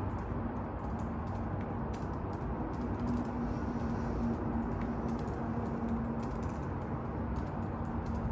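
Typing on a laptop keyboard: quick, irregular key clicks over a steady low background noise.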